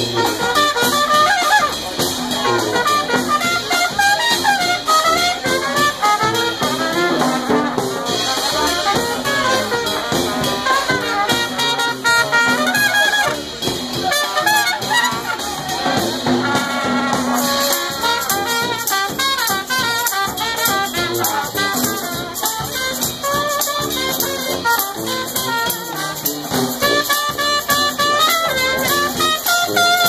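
Street brass band playing an upbeat tune together: sousaphone, saxophones and trumpets over a bass drum.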